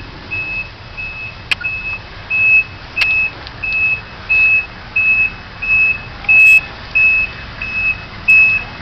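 Snowplow truck's reversing alarm beeping, one high tone about every two-thirds of a second, over a low engine rumble.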